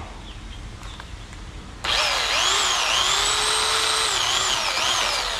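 Portland electric pole saw switching on suddenly about two seconds in, its motor whining with a pitch that dips and recovers several times as the chain cuts into a tree branch.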